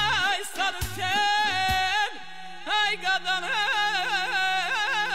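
A man sings a song into a microphone, his voice full of quick warbling trills, over instrumental backing. Drum beats are heard for the first two seconds, then a steady held accompaniment continues under the voice.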